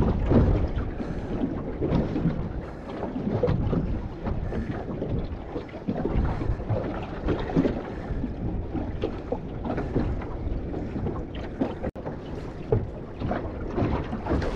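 Wind buffeting the microphone outdoors by the sea: an uneven rushing noise that rises and falls.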